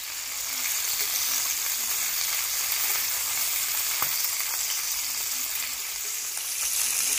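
Masala-coated chicken wings sizzling steadily as they shallow-fry in a little hot oil in a frying pan, while a metal spatula turns the pieces over, with a light tap about four seconds in.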